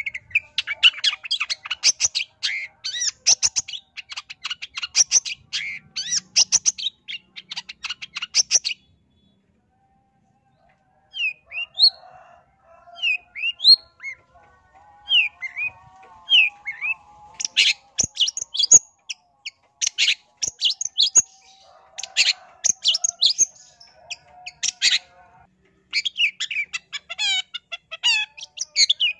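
Long-tailed shrike singing: dense runs of rapid, scratchy chattering notes. They break off for about two seconds a third of the way in, come back as separate short whistled notes that rise and fall, then turn into fast chattering runs again.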